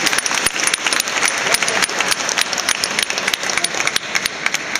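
A small group of people applauding, many hands clapping quickly and overlapping.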